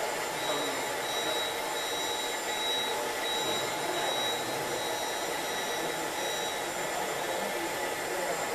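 Steady electric whirr with a thin high whine from a radio-controlled model excavator's hydraulic pump and motors as it works its arm.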